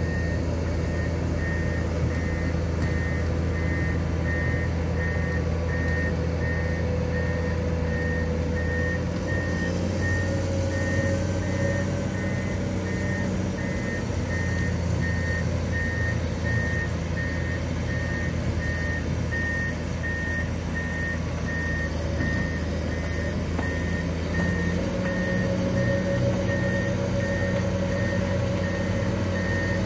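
Amphibious long-reach Komatsu excavator with its diesel engine running steadily and its travel alarm beeping in an even, repeating rhythm as it crawls on its pontoon tracks; the engine note shifts a little about a third of the way in and again near the end.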